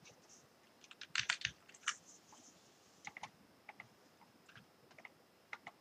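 Scattered clicks of a computer keyboard and mouse: a quick run of clicks about a second in, then single clicks spread through the rest.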